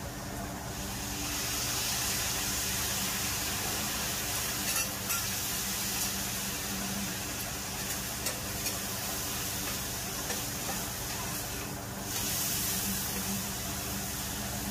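Sliced meat sizzling loudly on a flat iron griddle (teppan), with a few light clicks as a metal spatula turns it. The sizzle swells about a second in and eases briefly about twelve seconds in before picking up again.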